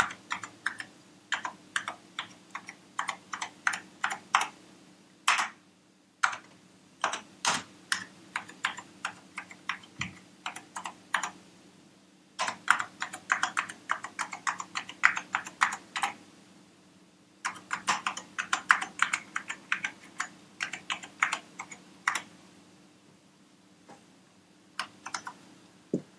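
Amiga 1000 keyboard keys pressed one after another in quick runs of clicks, with short pauses between runs, as each key is tested to see that it registers. The clicks thin out near the end, over a faint steady low hum.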